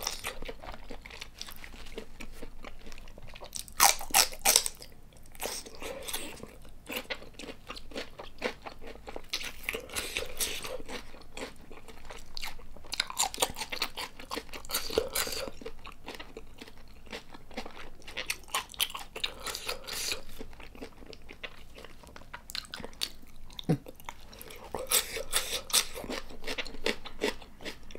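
Close-miked chewing of soy-marinated raw tiger prawn dipped in egg yolk and dipping sauce: moist clicks and crunches that come in bursts every few seconds, loudest about four seconds in and again near the end.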